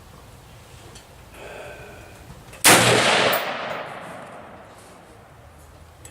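A single shot from an AR-15 rifle firing 5.56×45mm 55-grain full metal jacket ammunition: a sharp crack about two and a half seconds in, followed by an echo that trails off over a second or so.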